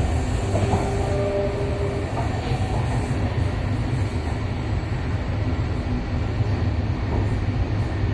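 An MTR East Rail Line electric train running at speed, heard as a steady, even rumble. In the first two seconds a faint steady hum sits above it.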